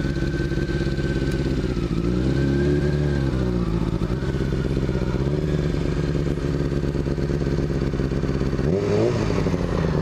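Honda CBR600F4's inline-four engine running, with revs rising and falling about two seconds in as the bike pulls away through the turn. The revs climb sharply again near the end under acceleration.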